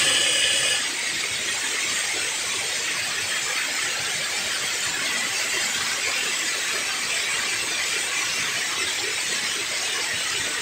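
Steady rushing of river water pouring over a weir drop, even and unbroken. A brief high squealing tone sounds in the first second.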